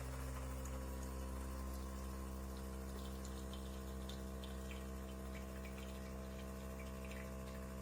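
De'Longhi La Specialista Touch espresso machine's pump humming steadily while it pulls a shot of espresso, with light drips of coffee falling into the mug.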